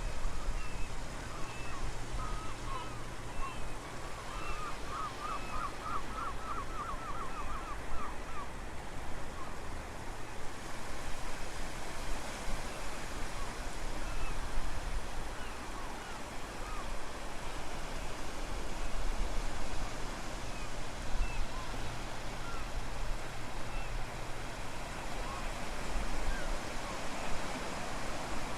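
Wind gusting across the microphone over the steady wash of ocean waves at low tide. Small birds chirp through the first several seconds, including a quick trill about five seconds in.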